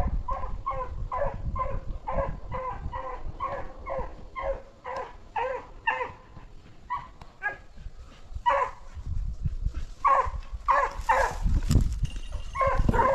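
A dog barking in quick, short yips, about three a second at first, then sparser and louder calls near the end. There is a low rumbling noise underneath.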